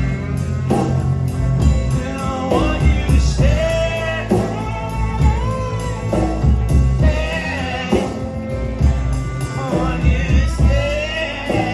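A live band playing a rock song: bass and drums under a sung melody with long, gliding held notes.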